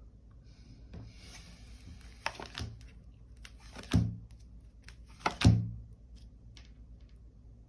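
Tarot cards being handled and laid down on a table: papery rustling and light taps, with two louder thuds about four and five and a half seconds in.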